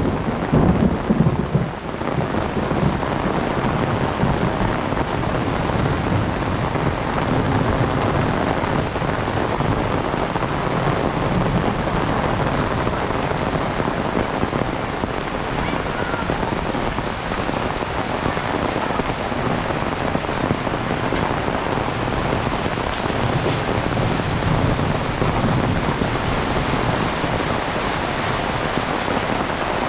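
Heavy rain falling steadily in a dense, even hiss. A low rumble sits under it at the start and fades out about two seconds in.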